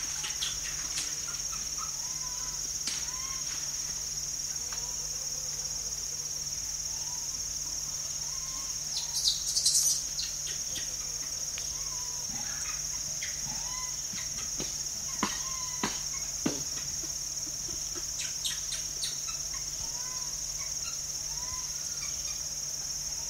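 A troop of rhesus macaques feeding and scuffling, with many short whining calls from the young, scattered clicks and rustles, and one shrill squeal about nine seconds in. A steady high insect drone runs underneath.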